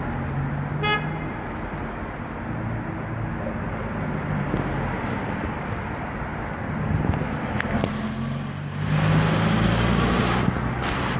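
Street traffic: car engines running with a steady low hum, a short high toot about a second in, and a vehicle passing louder near the end.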